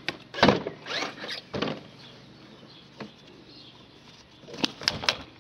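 Rear hatch of a Smart car being unlatched and opened: a series of sharp latch clicks and clunks with a squeak, a group in the first two seconds and another group near the end.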